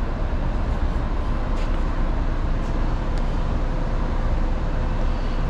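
Steady machine-shop background noise: an even rumble of running machinery with a faint hum, and a few faint clicks.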